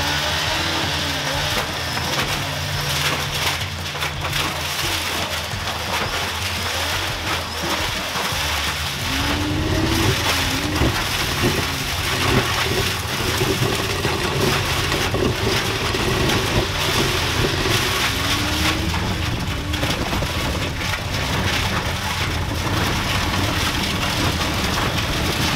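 Honda CBR600 motorcycle engine running hard to drive a giant homemade blender's two-foot blades, which smash a motorcycle crash helmet. A steady engine note sits under a continuous crunching clatter of shattering plastic, with the pitch rising briefly a few times.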